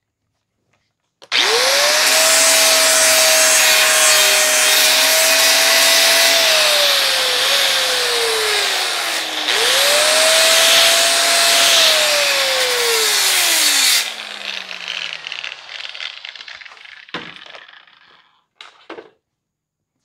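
Angle grinder with a 100-grit sanding disc smoothing a weld on the steel face of a smoker firebox door. The motor whines up to speed and the disc hisses against the steel for about eight seconds, then the whine falls away. A second run of about five seconds follows, also winding down at the end. Two light knocks come near the end.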